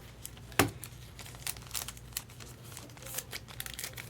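Baseball cards and their packaging being handled: crinkling and rustling, with one sharp tap just over half a second in.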